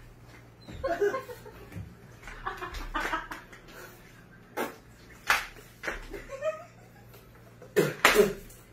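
Two women play-fighting: brief faint bits of voice and laughter with a few sharp knocks, the loudest two close together near the end.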